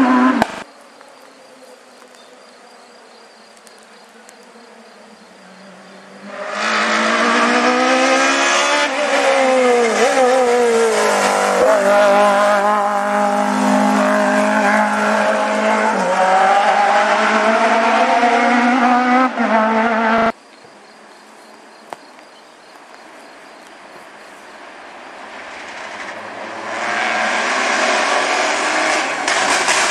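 Rally cars at full throttle on a special stage. One passes loudly for about fourteen seconds, its engine note falling and climbing several times, with tyre squeal. After a quieter gap a second car approaches, its engine growing louder near the end.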